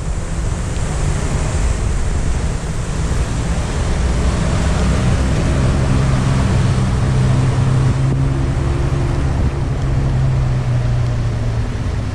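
Steady rain falling with a constant hiss. From about four seconds in, a vehicle engine's low drone comes in under it and fades near the end.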